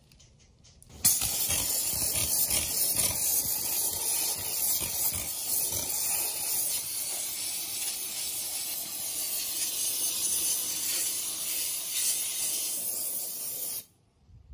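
Handheld steam cleaner spraying a jet of steam onto a motorcycle's engine case and front sprocket area to clean off grime. It gives a steady, loud hiss that starts suddenly about a second in and cuts off sharply near the end.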